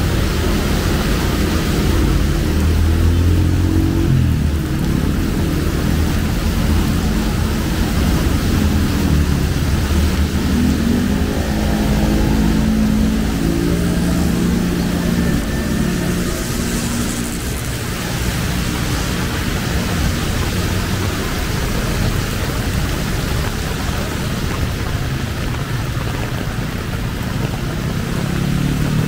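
Road traffic on a wet street in the rain: engines of passing vehicles come and go, mostly in the middle and again near the end, over a steady hiss of rain and tyres.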